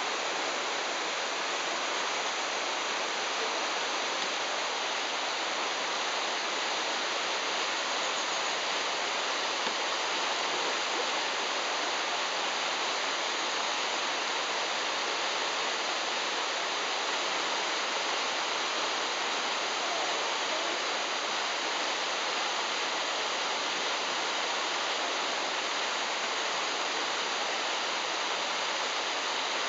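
River rapids: whitewater rushing steadily over and around boulders.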